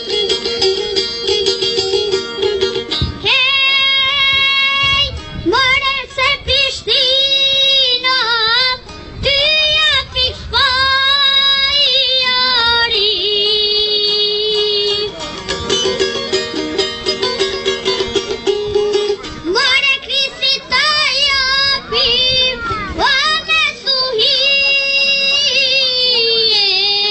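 A boy singing a song in long, wavering held phrases over instrumental accompaniment. The accompaniment plays alone for the first few seconds and again in a break near the middle before the singing returns.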